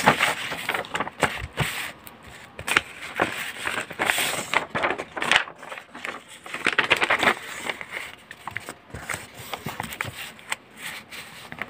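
Irregular rustling, scraping and crackling of paper sheets being shifted and folded by hand, with short handling clicks.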